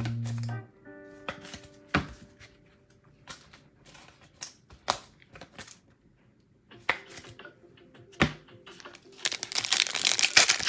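Scattered light clicks and taps of trading cards being handled. Then, near the end, loud crinkling and tearing as a foil trading-card pack is ripped open.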